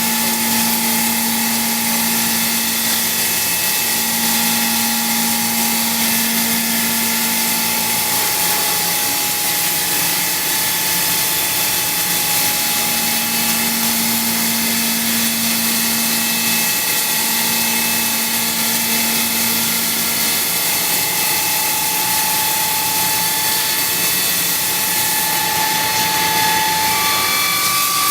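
5-axis CNC machining centre cutting metal: a steady machining noise with a hiss and several held whining tones from the spindle and cutter, a lower hum that comes and goes a few times, and the pitch stepping up near the end.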